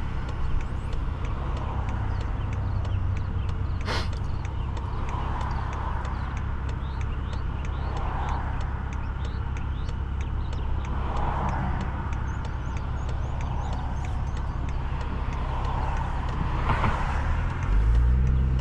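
Stage 2 tuned BMW 540i's turbocharged straight-six, with catback exhaust and downpipe, running at low revs with a steady deep drone. There is a single sharp click about four seconds in. Near the end the engine note rises and grows louder as the car accelerates.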